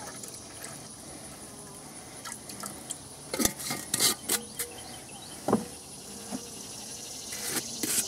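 Sugar syrup poured from a glass jar into a plastic beehive feeder: a faint steady trickle of liquid, then a few sharp clicks and knocks about three and a half to four and a half seconds in.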